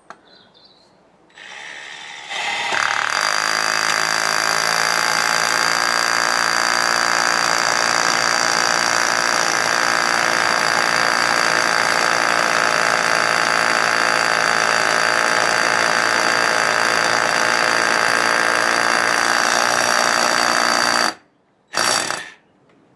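DeWalt cordless SDS hammer drill boring into a brick with an SDS masonry bit. It starts softly about a second and a half in, then runs loud and steady under load for about eighteen seconds, stops, and gives one short extra burst just before the end.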